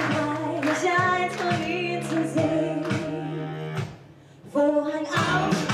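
A woman singing into a microphone over instrumental backing. Both drop out briefly about four seconds in, then the singing comes back in.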